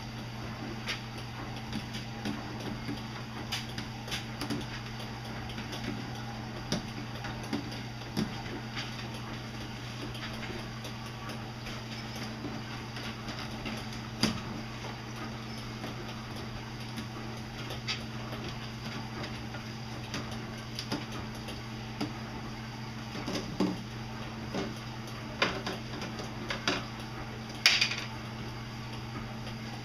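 A cat pawing at the screw-on lid of a plastic water dispenser jug: scattered light taps, scrapes and clicks of paw and claws on hard plastic, coming more often in the last few seconds, with the loudest clatter near the end. A steady low hum runs underneath.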